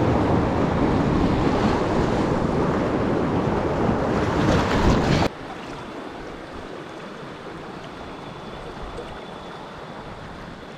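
Rushing river water with wind buffeting the camera microphone as a packraft runs a shallow rocky rapid. About five seconds in it cuts off suddenly to a quieter, steady ripple of current flowing past the raft.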